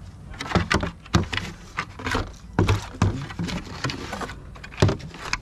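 Plastic side-mirror housing on a pickup truck door being wrenched back and forth by hand, giving an irregular series of sharp clacks, knocks and cracks as it breaks apart.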